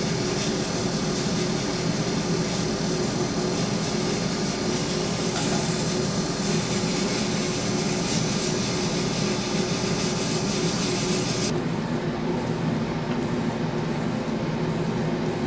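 Pen-turning lathe running steadily with a motor hum. A high hiss on top of it stops about eleven and a half seconds in, leaving the hum.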